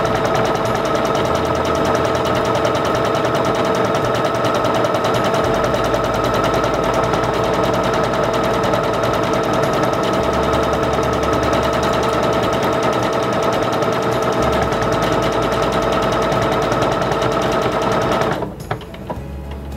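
Singer Confidence 7640 electronic sewing machine running steadily, its needle stitching fast and evenly with a steady motor whine as it sews out a programmed sequence of alphabet letters. The machine stops abruptly near the end.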